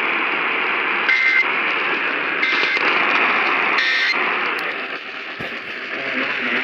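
Radio static hiss with three short buzzy data bursts, about 1.3 s apart, in the first four seconds. These are the Emergency Alert System end-of-message (EOM) tones that close the tornado warning broadcast.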